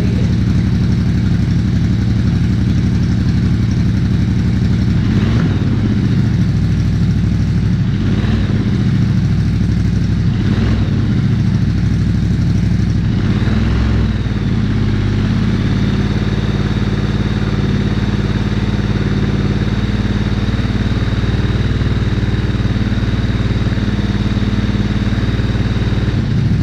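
Ducati Diavel 1260's 1262 cc V-twin idling through a Termignoni slip-on exhaust with its baffle fitted. It is blipped up and back several times in the first half, then settles into a steady idle.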